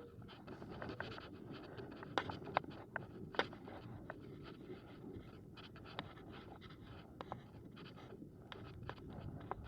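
Heavy-duty gear wagon being dragged along on foot: a steady low rolling rumble with many scattered clicks and rattles.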